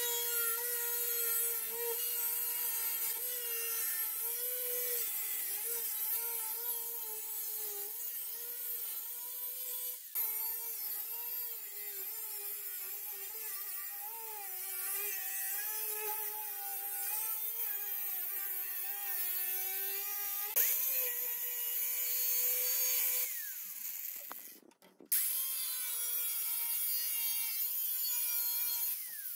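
DeWalt angle grinder with a cut-off wheel cutting through a rusted sheet-steel car floor pan: a steady motor whine whose pitch sags and wavers as the wheel bites into the metal. About four-fifths of the way in it winds down and stops briefly, then starts up again and carries on cutting.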